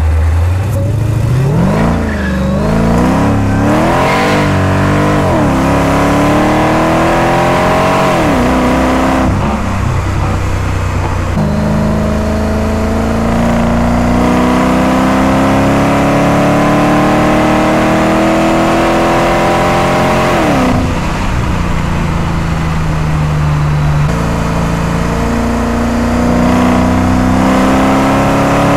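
Mercedes-Benz CLS55 AMG's supercharged 5.4-litre V8, with a Supersprint exhaust, heard from inside the cabin as the car accelerates. Early on the engine note rises and falls quickly several times as the car pulls away, then it climbs steadily through a long pull in one gear, drops sharply at an upshift about two-thirds of the way in, and climbs again near the end.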